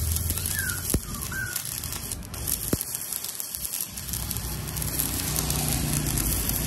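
Stick-welding arc from a Brotech MK 200F inverter welder burning a 3.2 mm electrode on thick steel at about 160 A: a steady crackling hiss. Two sharp ticks cut through it, about a second in and near three seconds.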